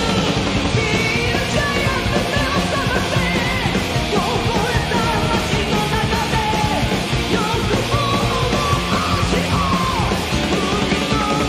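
Live rock band music played loud: electric bass, electric guitars and drums, with a melodic line bending in pitch over the top.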